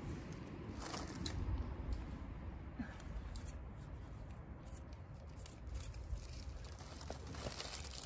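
Gloved hand pulling grass and weeds out of damp garden soil: scattered short tearing and rustling sounds over a steady low rumble.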